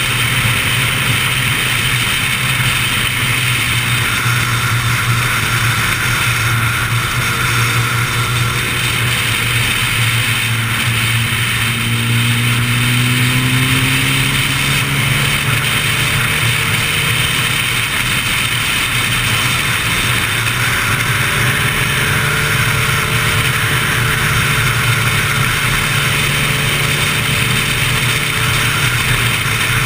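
Sport motorcycle engine pulling steadily at highway speed, its note shifting a little in pitch about halfway through, under a constant rush of wind and road noise.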